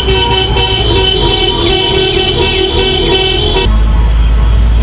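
Car horns honking continuously, several held tones sounding together over traffic noise. Near the end the sound cuts abruptly to a deep, low rumble.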